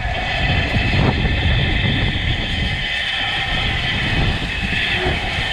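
Steady rumble of a moving vehicle, with a constant higher ringing or whine running over it.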